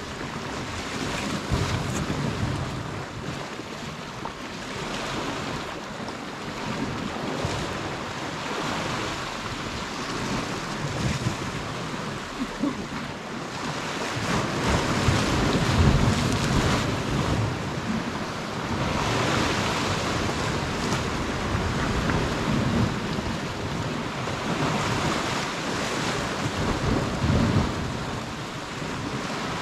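Sea water washing gently at the shore, with wind gusting on the microphone now and then.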